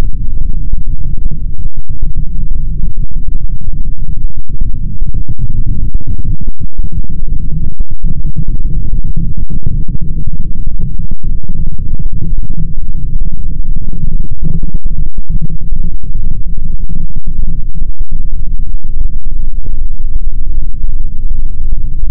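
Loud, distorted electronic drone: a dense, steady low rumble with little in the upper range, broken by many brief momentary gaps.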